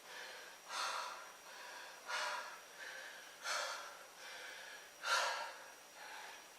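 A man breathing hard between sets of push-ups, out of breath. A loud breath comes about every second and a half, with softer breaths between.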